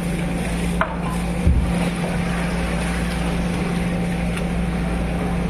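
A hammer striking the spine of a knife to split a large amberjack's head on a wooden board: a sharp knock a little under a second in, then a heavier thump, over a steady low machine hum.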